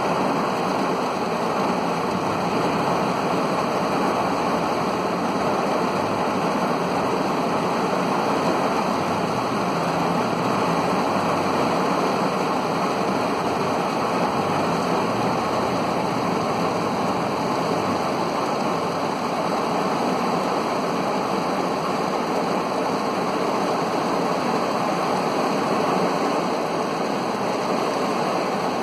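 Heavy rain drumming steadily on a car's body, heard from inside the car as an even, constant hiss and patter.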